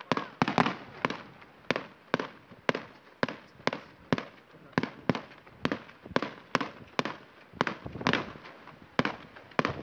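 Fireworks display: a steady run of sharp bangs from aerial shells, about three a second, each trailing off briefly.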